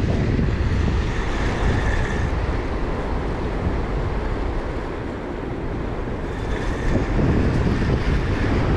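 Wind buffeting the microphone, over waves breaking and washing against the rocks of a jetty.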